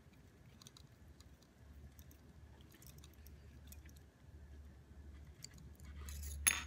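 Faint ticks and scrapes of a small screwdriver turning a tiny screw into a mini drone's plastic propeller guard, over a low handling rumble, with one sharper click near the end.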